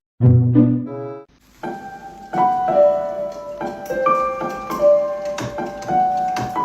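Background piano music: a melody of single, ringing notes starts about a second and a half in, after a brief pitched sound at the start.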